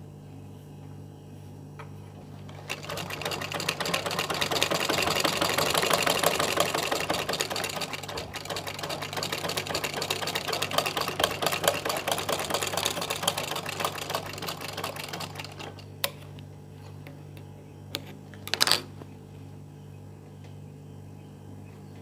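Domestic sewing machine running, stitching fabric in one continuous run of about twelve seconds that picks up speed and then holds steady before stopping. A few single clicks and a short louder rasp follow.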